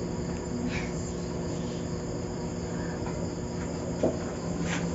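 Crickets chirring steadily at night, over a low steady hum, with a light knock about four seconds in.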